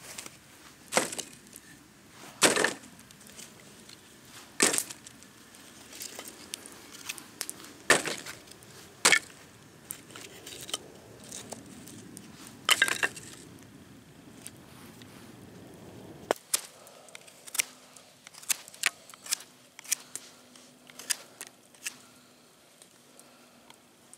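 Pieces of split firewood landing in a wire basket, with sharp wooden clacks one to three seconds apart. In the second half the knocks give way to lighter, quicker clicks and taps.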